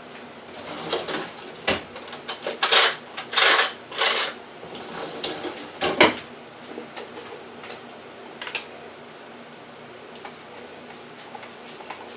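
Kitchen handling sounds: a knock, a few short scraping, rustling clatters of utensils and containers, and another sharp knock in the first half, then a few faint ticks over quiet room tone.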